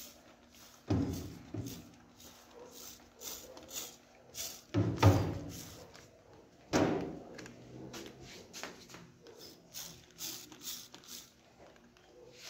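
Dull knocks and clunks of a gas stove's sheet-metal body being handled, four of them, the loudest about five seconds in, with faint short hisses between.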